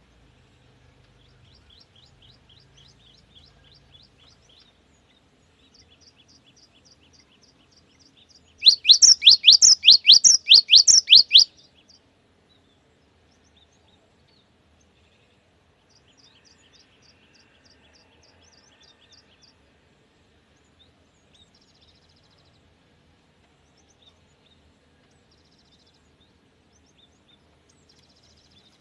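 Cinereous tit singing: about nine seconds in, a loud three-second bout of quick repeated sweeping whistled notes, about four a second, with fainter rapid chirping series before and after.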